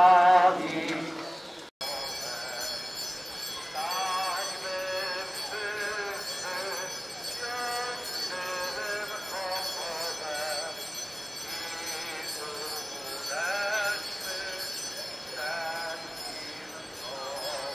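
People singing a hymn while walking in a religious procession, with small bells jingling steadily underneath. The sound cuts off abruptly about two seconds in, and after that the singing is quieter, in short wavering phrases.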